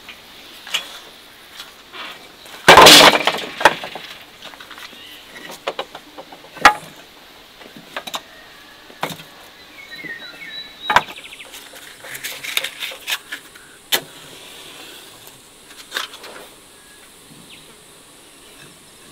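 Split firewood logs knocked and set down one at a time on the floor of a brick wood-fired oven: a string of separate wooden clunks and clicks. A much louder clatter comes about three seconds in.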